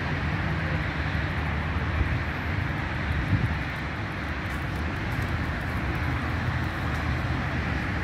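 Steady low rumble of outdoor background noise, even throughout, with no distinct events standing out.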